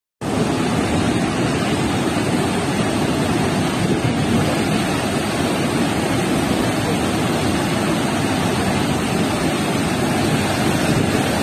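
Floodwater released through open spillway shutters rushing down a concrete dam chute: a loud, steady rush of white water that cuts in abruptly at the start.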